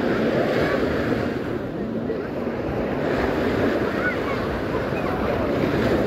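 Small waves breaking and washing up on a sandy beach, with wind noise on the microphone.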